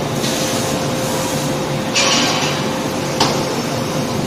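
Forging shop noise at an electric screw forging press: a steady machine hum with a faint constant tone, a burst of hiss about two seconds in, and a single sharp metallic knock a little after three seconds.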